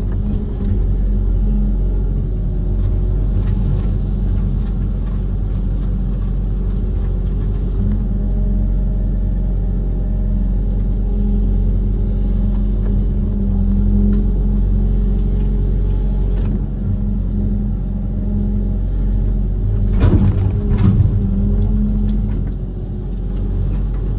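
Diesel engine of a Kobelco SK130 amphibious excavator running steadily with a low rumble. About twenty seconds in there is a brief, louder clatter.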